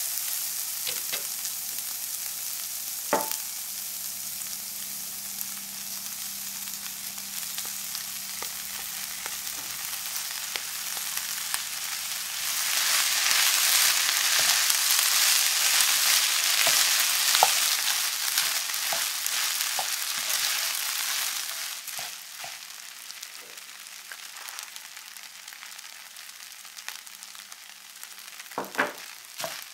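Diced vegetables frying in oil in a nonstick pan, a steady sizzle with a wooden spatula stirring and scraping, and one sharp tap of the spatula about 3 seconds in. Partway through, the sizzle grows louder for about nine seconds as cooked rice is stirred in. It then drops back to a softer sizzle, with a few knocks of the spatula near the end.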